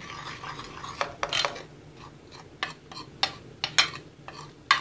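Metal spoon stirring dry cocoa powder and powdered sugar in a glass bowl: a gritty scraping with irregular sharp clinks of the spoon against the glass.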